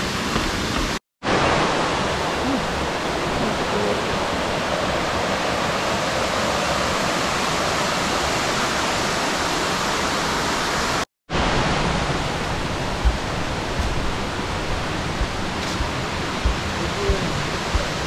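Steady rush of stream water along the trail, an even hiss with no pitch. It cuts out completely for a moment twice, with a few soft low knocks near the end.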